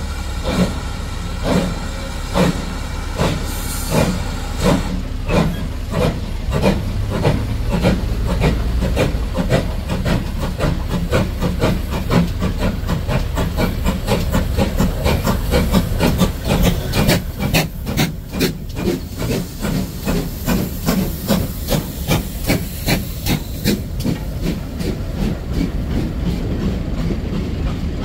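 Two steam locomotives double-heading a train, led by 2-6-0 Mogul no. 9351, working hard as they pull away: sharp exhaust beats over hissing steam, quickening from just over one a second to about two and a half a second. Near the end the beats fade as the coaches roll past.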